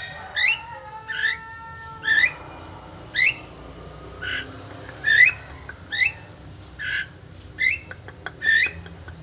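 Javan myna calling over and over: about ten short rising notes, each following the last by less than a second. Faint steady whistled tones sound under the first two seconds.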